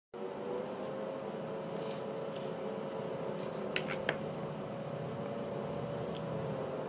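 A steady hum throughout, with a few crisp plastic clicks and crackles about four seconds in as a clear plastic pastry container is handled.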